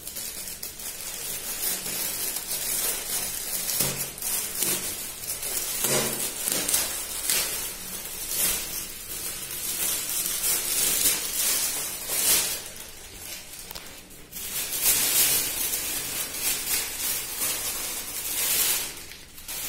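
Thin plastic bag crinkling and rustling as it is handled, unfolded and opened, in uneven crackly spells with a short lull partway through.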